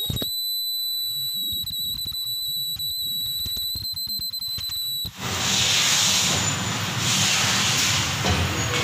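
Ultrasonic tube-sealing machine giving a steady, high-pitched whine for about five seconds that cuts off abruptly, followed by a steady hissing machine noise.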